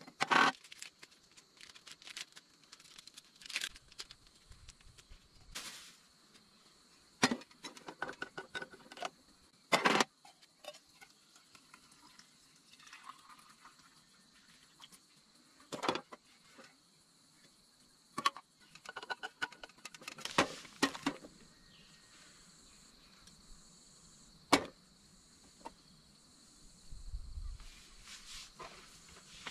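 A steady, high insect drone, with scattered sharp clicks and knocks, a few short chirps, and a brief low rumble near the end.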